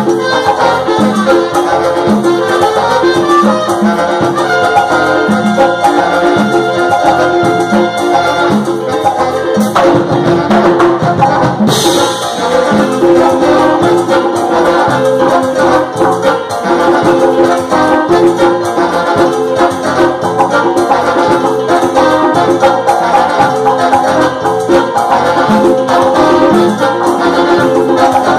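Live band with a horn section of tenor saxophone and trumpet playing an upbeat Latin dance tune over steady percussion, with a bright crash about twelve seconds in.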